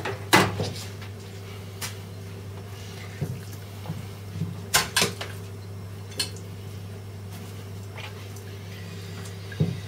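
Raw chicken pieces being lifted, moved and set down on a plastic cutting board: a sharp click about half a second in, then a few scattered knocks and taps.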